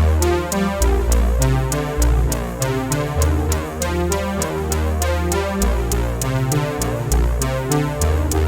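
Electronic dance music with a steady drum-machine beat, a deep synth bass line and layered synthesizer chords.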